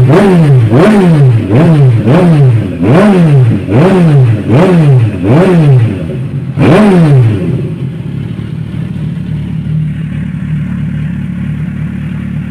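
Kawasaki Ninja 1000SX's inline-four engine, its stock muffler canister removed, revved in about ten quick throttle blips, each rising and falling in pitch, the last one a little longer. It then settles back to a steady idle.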